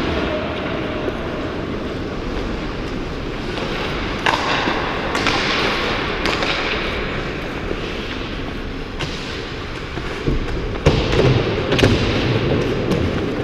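Ice hockey on the ice, heard from a skater's helmet camera: a steady rush of skate blades on ice with several sharp clacks of hockey sticks and puck.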